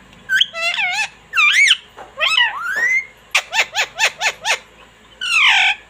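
Indian ringneck parrot calling and chattering: a string of high, bending squawks, then a quick run of about eight sharp chirps in the middle, and a harsh screech near the end.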